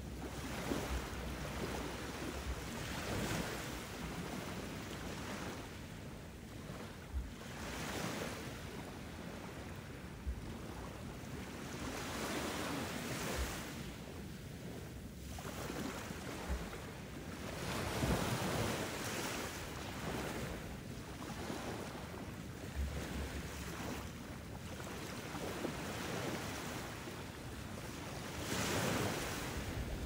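Ocean surf: waves breaking and washing in and out, swelling and fading every few seconds.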